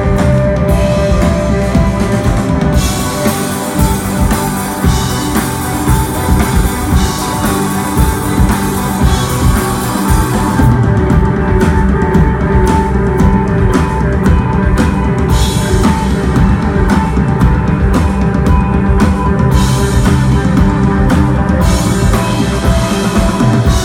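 Live instrumental desert-rock band playing: sustained electric guitar over bass and a drum kit, with steady drum and cymbal strokes.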